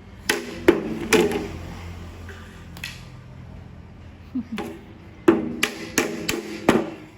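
A drum beaten with irregular sharp strikes, each with a short ring: three in the first second or so, a softer one near three seconds, then a run of about six from four and a half seconds on.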